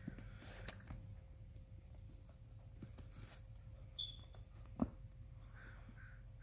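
Young goats' hooves pattering and scuffling on asphalt and grass, with scattered light taps and one sharp knock a little before five seconds in.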